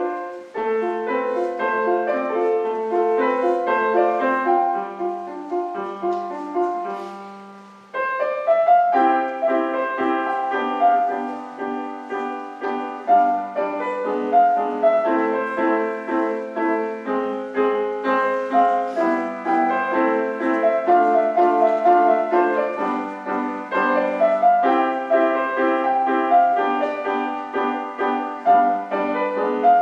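Solo piano playing a melody over repeated chords. The sound dies away to a brief pause about eight seconds in, then the playing picks up again.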